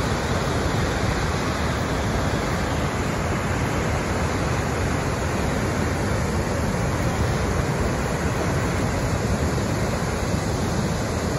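Nugget Falls, a large waterfall, pouring down a rock face: a steady, even rush of falling water.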